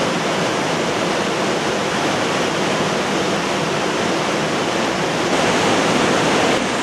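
Steady rush of a whitewater mountain river in a gorge, an even, unbroken hiss of water that grows slightly louder and brighter about five seconds in.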